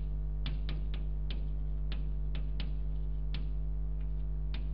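Chalk tapping and scratching on a blackboard as words are written: about ten short, sharp clicks at an uneven pace. Under it runs a steady electrical mains hum, the loudest thing throughout.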